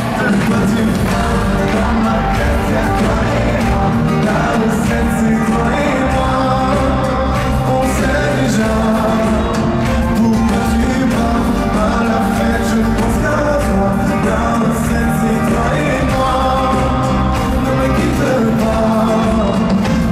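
Live pop song played through a concert sound system: a male lead singer over a band with a steady low beat.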